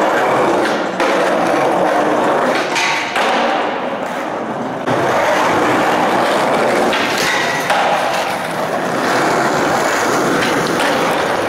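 Skateboard wheels rolling over a concrete parking-garage floor in a steady, echoing rumble. A few sharp knocks of the board come through it, about one, three and five seconds in and again near eight seconds.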